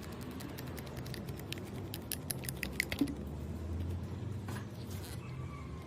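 Quiet handling noise: a quick run of small clicks and ticks over the first three seconds, then a few soft swishes, over a low steady hum.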